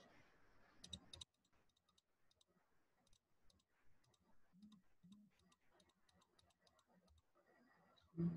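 Faint computer mouse clicks, scattered and irregular, with a small cluster about a second in.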